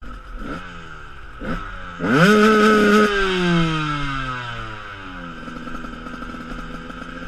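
Enduro dirt bike engine idling, blipped briefly twice, then revved hard for about a second; the revs slide down over the next couple of seconds and it settles back to a steady idle.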